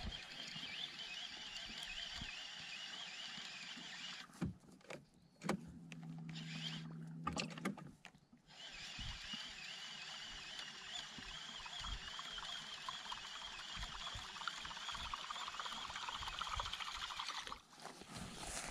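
Fishing reel being cranked steadily, retrieving a topwater lure, with a steady whirr, cut off briefly twice.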